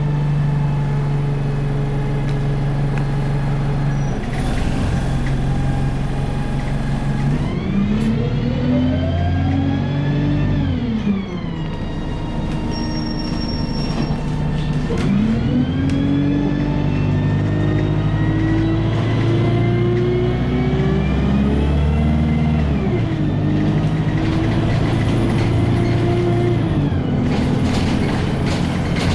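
Bus diesel engine idling, then revving up and dropping back twice, the second time climbing in steps as it pulls away through its gears.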